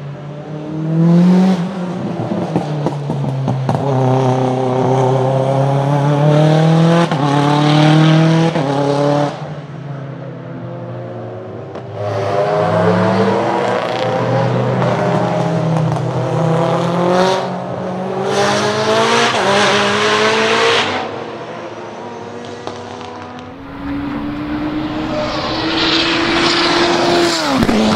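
Turbocharged four-cylinder time-attack race car accelerating hard on track. The engine note climbs through quick sequential-gearbox upshifts in several pulls, eases off twice between them, and drops sharply in pitch near the end.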